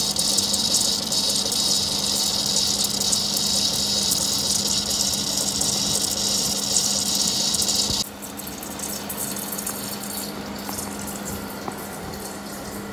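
CNC wire-cut EDM machine cutting: a loud, high hissing crackle from the wire cut and coolant flush over a steady low electrical hum. The hiss cuts off suddenly about eight seconds in, leaving the quieter hum and machine noise.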